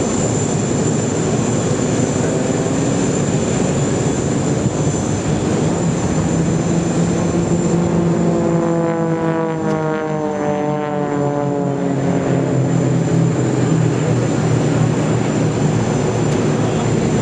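Propeller-driven aerobatic planes flying in a four-ship smoke-trailing formation, their engines droning steadily. About halfway through, the engine note falls in pitch for several seconds as the formation passes.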